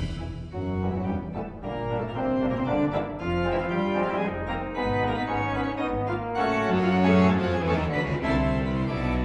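Background music: sustained organ-like keyboard chords over a low bass line, the notes changing steadily.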